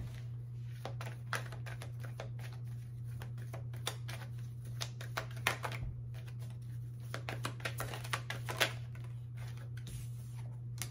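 Tarot cards being handled: shuffled and laid out in a run of quick, light flicks and clicks, thickest about halfway and again near the end, over a steady low hum.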